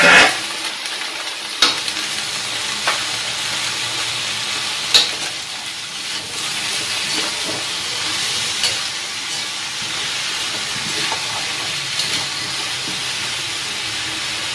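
Eggplant, string beans and squash sizzling in a wok as they are stir-fried with a metal spatula, which scrapes and clinks against the pan now and then over the steady hiss.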